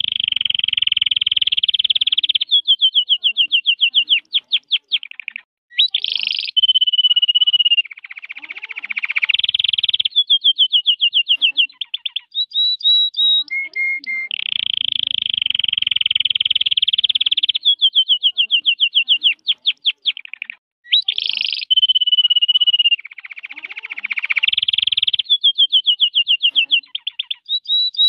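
Red factor canary singing: long rolling trills alternate with fast runs of repeated notes and short gliding whistles, and the same song sequence comes round again about halfway through.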